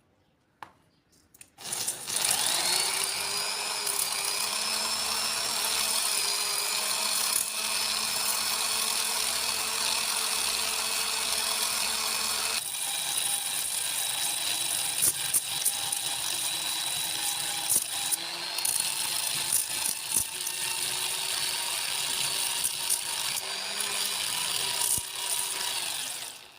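A small electric power tool running steadily, with a motor whine over a gritty hiss, as in abrasive sharpening. The tone changes abruptly about halfway through, and it stops near the end.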